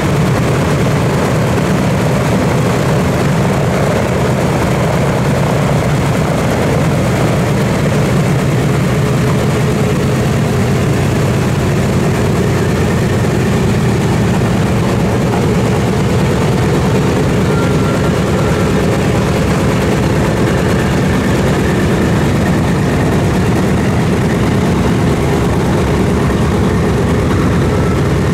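Boeing B-17G Flying Fortress taxiing on its four Wright R-1820 Cyclone nine-cylinder radial engines, running steadily at low power with a deep rumble.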